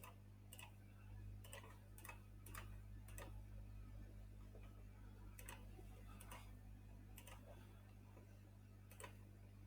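Faint, irregular clicks of a computer mouse, about one or two a second, over a steady low electrical hum.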